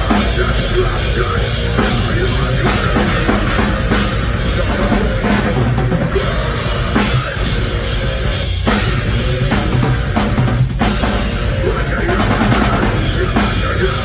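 A metalcore band playing live and loud: distorted electric guitars, bass and a drum kit with kick drum and cymbals. The music breaks off for a split second twice in the second half.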